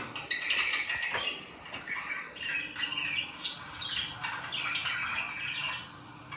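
Budgerigar chattering: a continuous run of warbling chirps and squawks, with a couple of sharp clicks in the first second or so.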